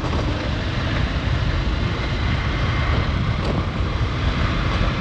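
Motorcycle riding along a road: steady engine drone mixed with wind rushing over the microphone.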